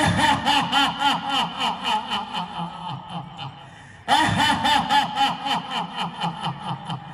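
A person laughing in two long bouts of rapid ha-ha-ha, each starting loud and fading away, the second starting about four seconds in.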